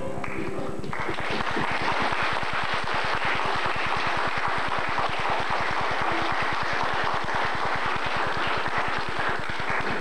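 Audience applause in a hall, a dense steady clapping that starts about a second in.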